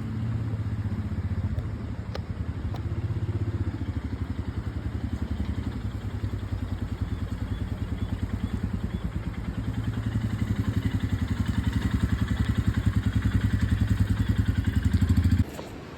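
Royal Enfield Himalayan's single-cylinder engine running with a steady, even thump while the motorcycle is ridden, growing somewhat louder past the middle. It cuts off abruptly near the end.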